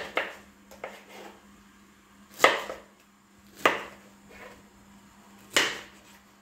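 Kitchen knife chopping through peeled pineapple and striking a wooden chopping board. A few light chops come in the first second, then three sharp, louder chops about a second or two apart.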